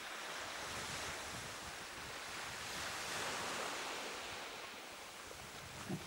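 Small waves washing onto a sandy beach, with wind on the microphone: a steady hiss that swells and eases slowly. A brief thump comes near the end.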